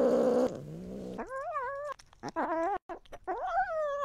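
Scottish Fold cat yowling while a plastic pill syringe is pushed into its mouth: a short noisy cry at the start, then several drawn-out meows that waver in pitch.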